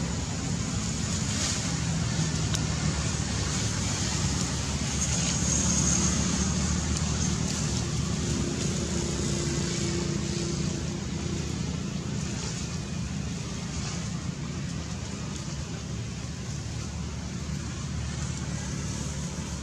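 Steady low background rumble with a hiss over it. A faint high whine comes in briefly about five to seven seconds in.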